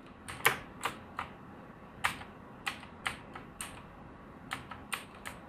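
Keys of a backlit gaming keyboard tapped in short, irregular clicks, sometimes several in quick succession, as the keys are pressed to steer a car in a driving game.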